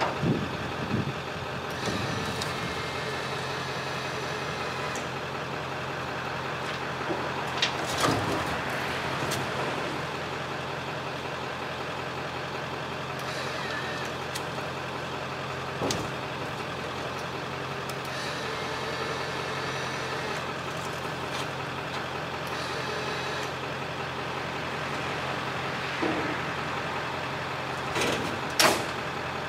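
Truck diesel engine idling steadily, with a few sharp metal clanks and knocks on top, one cluster near the start, single ones scattered through, and two close together near the end.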